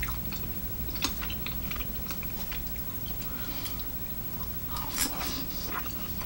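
Close mouth sounds of a person biting and chewing rice cakes (tteokbokki) coated in a thick sauce: a run of short wet clicks and smacks, with a louder one about five seconds in.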